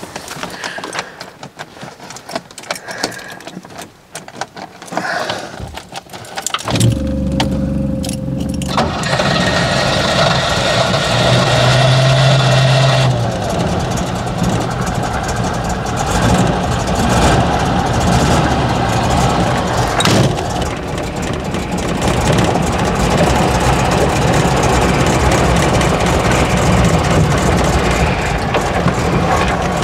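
Scattered clicks and knocks. Then, about seven seconds in, the 1977 Range Rover Classic's 3.5-litre Rover V8 is cranked and catches after a couple of seconds: a first start after long standing in a barn. The engine is held at higher revs for a couple of seconds, then runs steadily at a low idle.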